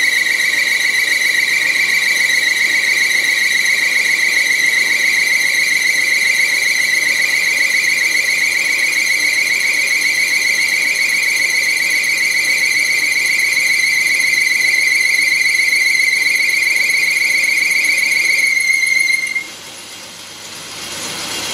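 Lathe cutting tool squealing against the spinning metal workpiece during a turning cut: one loud, high-pitched, steady tone with a slight waver. The squeal stops abruptly about 19 seconds in as the cut ends, leaving a quieter rubbing noise.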